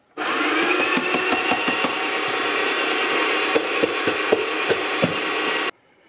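Breville Smart Grinder Pro electric burr grinder running for about five and a half seconds: a steady motor whine that rises slightly as it spins up, with crackling through it, then stops abruptly. It is run briefly to clear out coffee left in the grinder.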